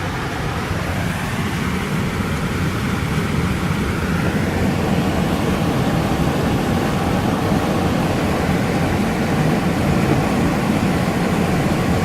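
A car driving through floodwater: a steady rushing noise over a low rumble, growing louder about four seconds in.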